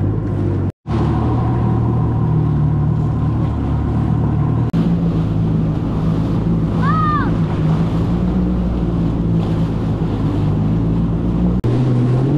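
Jet ski engine running at speed with a steady hum, water spray and wind rushing past, heard from the rider's seat. The sound drops out for a moment about a second in, and a short high-pitched call rises and falls about seven seconds in.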